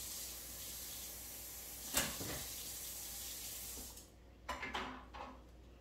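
A steady hiss with a single sharp click about two seconds in; the hiss cuts off suddenly about four seconds in, followed by a few short rustles and clicks.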